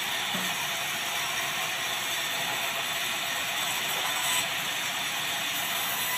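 Steady, rapid mechanical clicking, the dense ticking of a small mechanism.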